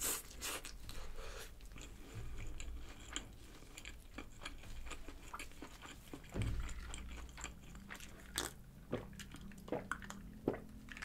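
Close-miked chewing of a bacon cheeseburger: a bite at the start, then moist chewing clicks and smacks. There is a soft low thump about six seconds in as a glass of water is picked up, and a sip of water near the end.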